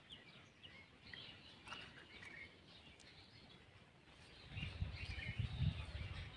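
Small birds chirping and calling faintly throughout. From about four and a half seconds in, a louder low rumbling noise joins them as a hand works ground paste out of a hollow in a stone mortar.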